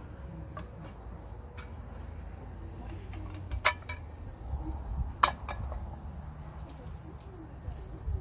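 A utensil scraping and clinking against an opened metal tuna can, with two sharp clinks about a second and a half apart near the middle and lighter ticks around them, over a steady low rumble.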